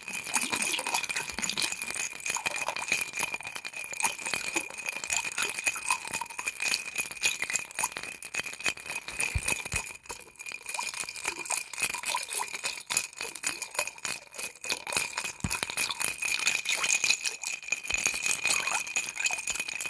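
Ice cubes rolling and clinking in a glass of water: a dense, continuous rattle of small clicks over a steady high ringing tone.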